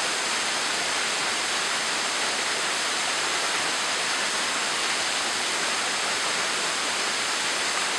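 Small waterfall falling over a rock ledge onto rocks: a steady, even rush of falling water.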